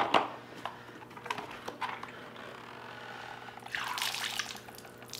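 Water left behind in a manual fluid extractor's reservoir pouring out as the tank is turned upside down, splashing onto a concrete floor a little before four seconds in, after a few knocks from the tank being handled.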